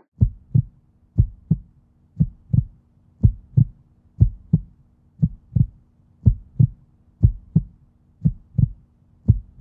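Heartbeat sound effect: paired low thumps, lub-dub, about once a second, over a faint steady low hum.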